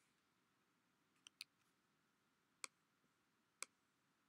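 Near silence broken by four faint, sharp computer clicks, as from a trackpad or mouse button: two close together a little over a second in, then one at about two and a half seconds and one more about a second later.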